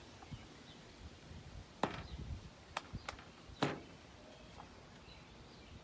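Light taps and clicks of craft supplies being handled on a tabletop: four short, sharp ones between about two and four seconds in, over a quiet outdoor background.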